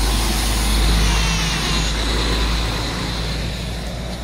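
Diesel engine of a DAF XF articulated lorry running with a deep rumble as the truck passes close by, fading steadily as it pulls away.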